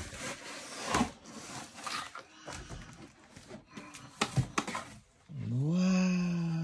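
Wooden furniture pieces being handled, with light knocks and rubbing now and then. Just past the middle, a person's voice makes one long drawn-out sound that rises in pitch and then holds.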